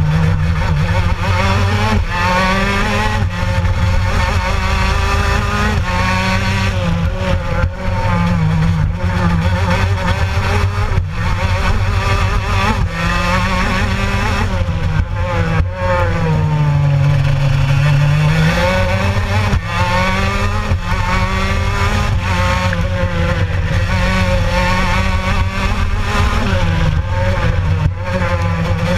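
Racing kart's Gilera two-stroke engine heard onboard at race pace, its pitch climbing on the straights and falling into the corners, over and over. About two-thirds of the way through it drops low for a slow bend, then climbs again.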